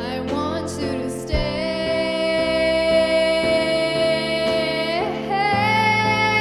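Woman singing over an instrumental accompaniment, holding one long note for several seconds, then moving up to a higher held note about five seconds in.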